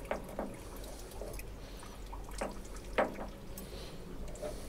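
Hot water dripping and trickling from the relief-valve connection of an unvented hot water cylinder into a container below, with a handful of separate drops plinking, the loudest about three seconds in.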